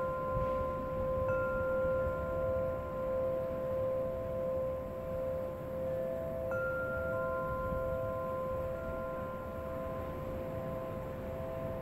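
Wind chime stirred by the breeze: several long, overlapping ringing tones that fade slowly, with fresh strikes about a second in and again around the middle, over a low rush of wind.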